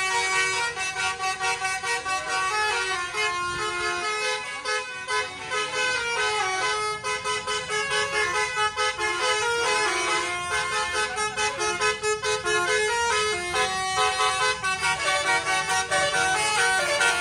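Basuri-module telolet air horn, a bank of twelve roof-mounted trumpets on a bus, playing a melody in short stepped notes without a break.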